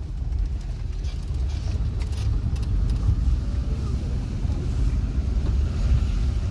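4x4 Jeep driving up a rough mountain track, heard from inside the cabin: a steady low rumble of engine and tyres, with a few light knocks.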